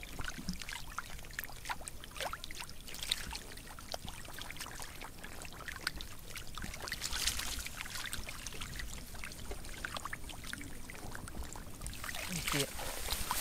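Light splashing and trickling of shallow muddy water, with many small scattered clicks and rustles.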